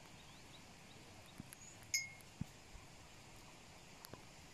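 A cow's neck bell clanks once, faintly, about two seconds in, with a few soft knocks around it.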